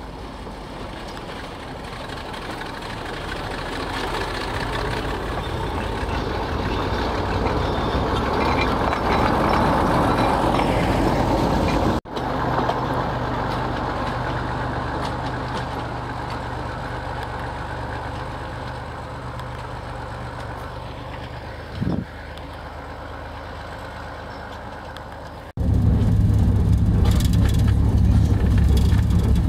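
Narrow-gauge diesel locomotive's engine running as it approaches and passes, growing louder to a peak about ten seconds in, then heard moving away, with one brief short sound near 22 seconds. Near the end, the engine is loud and steady with a deep hum, heard from aboard the moving train.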